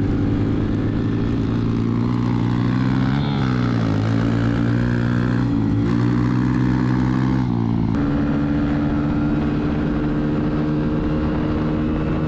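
Small four-stroke 110cc pit bike engines running under way, the engine pitch rising and falling between about two and eight seconds in, then changing abruptly and holding steady.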